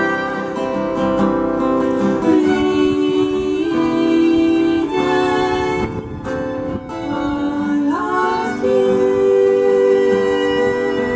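Music: acoustic guitar with long held notes from a bowed string instrument or voice, sliding to new pitches about two seconds in and again about eight seconds in.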